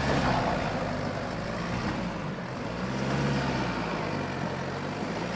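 Land Rover Freelander 2's engine pulling at low speed under load up a rutted off-road slope, its revs swelling near the start and again about three seconds in.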